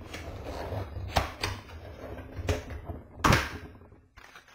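Handling noise of a gaming headset's box being worked open: rustling cardboard and plastic packaging with several sharp clicks and knocks, the loudest about three seconds in.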